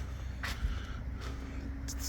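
Steady low hum of an idling truck engine, with a short scuff about half a second in.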